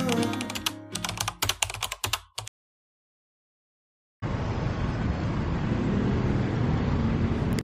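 Background music fading out into a quick, irregular run of sharp clicks like keyboard typing, which stops dead about two and a half seconds in; after a short gap of silence, a steady rushing background noise of outdoor ambience starts and holds.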